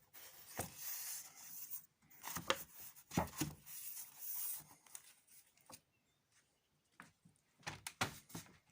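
Scraping and rubbing noises in two long stretches, followed by a few sharp knocks near the end.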